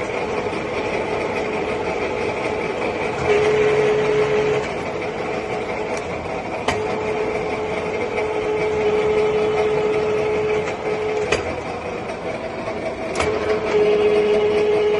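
6N13P vertical knee-type milling machine running, a steady mechanical drone from its spindle drive and gearbox. A steady whine comes in briefly about three seconds in, again for about four seconds from about seven seconds in, and once more near the end, with a few sharp clicks in between.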